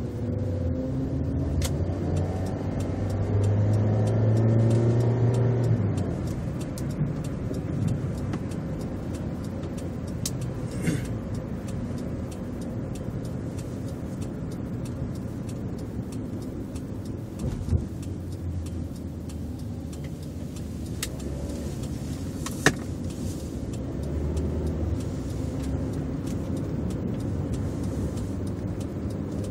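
Engine and road noise inside the cabin of a Hyundai Avante HD. The engine note rises as the car accelerates over the first few seconds, then settles into a steady cruise, with a couple of sharp clicks later on.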